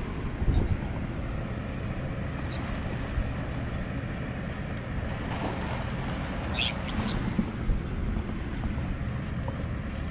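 Wind rumbling on the microphone over small waves lapping at the shore, with a few brief, sharp sounds, the loudest about seven seconds in.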